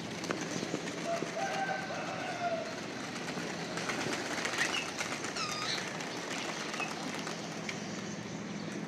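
A flock of domestic pigeons flying, their wings flapping and clapping in many short claps, over steady city background noise; a few short chirping calls come around the middle.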